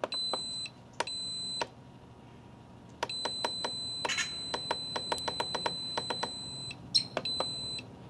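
Masterbuilt electric smoker's digital control panel beeping: two short high beeps, then a long steady beep of about four seconds with a run of sharp clicks through it, then more short beeps near the end. The controller is faulty: it won't stay on and makes clicking noises as it flips off.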